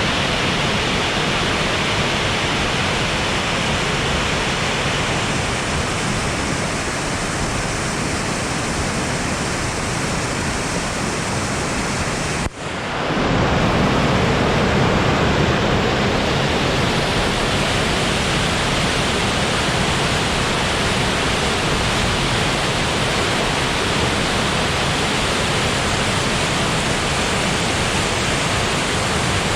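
Steady rushing of a small river running high after rain, a dense even hiss of fast water. About halfway through, the sound drops out for an instant and resumes with more low rumble.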